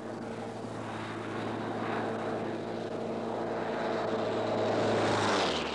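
Pitts Special aerobatic biplane's propeller engine running steadily in a fly-past, growing louder to a peak about five seconds in, then starting to fade.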